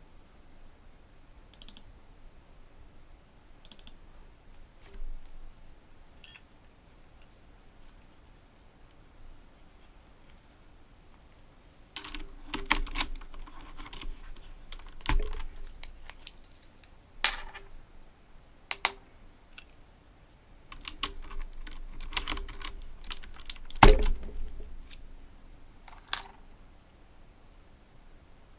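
Typing on an Owltech OWL-KB109BM II mechanical keyboard with clicky Cherry MX Blue switches. A few scattered keystrokes, then from about twelve seconds in, quick runs of key clicks broken by short pauses, with one especially loud strike late on.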